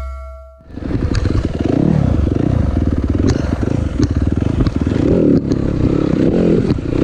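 Dirt bike engines revving up and down, the pitch rising and falling again and again. It cuts in about half a second in, as music fades out.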